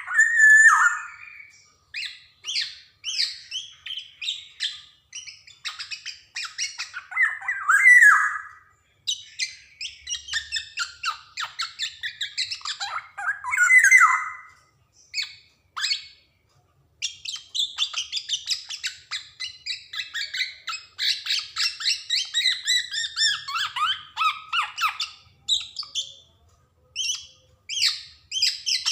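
Black-naped oriole (kepodang) singing: rapid runs of short, harsh chattering notes, broken by a few loud falling whistled notes at the start, about eight seconds in and about fourteen seconds in.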